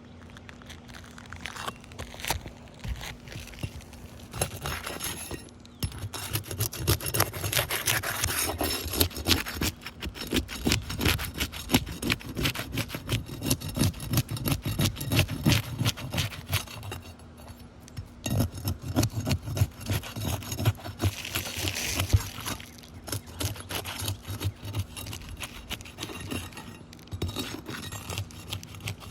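Roof shingle being worked on by hand: rapid, irregular scraping and rubbing strokes, quieter at first, then in two long spells with a short pause about two-thirds of the way through.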